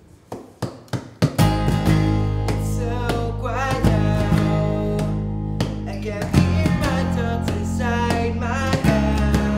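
A band's guitar music starting: a few separate picked notes, then about a second and a half in the full song comes in with acoustic guitar and a steady low bass part, played on evenly.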